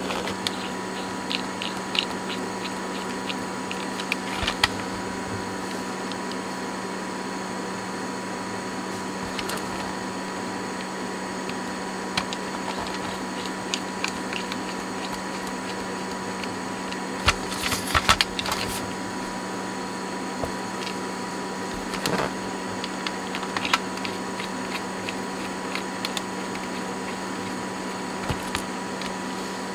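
Scattered small clicks and taps of a screwdriver and fingers on the plastic case of a Sony Walkman as its case screws are fitted, with a short run of clicks about halfway through, over a steady hum.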